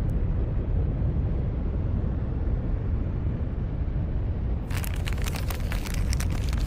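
Anime fight sound effects: a steady low explosion rumble, joined about two-thirds of the way in by a dense, sharp crackling.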